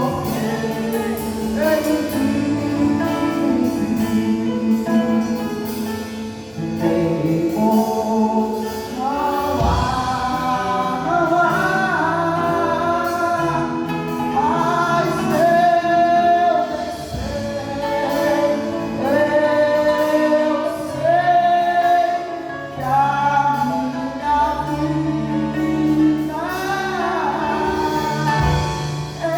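A gospel band playing a worship song live, with voices singing the melody together over held bass notes and instruments.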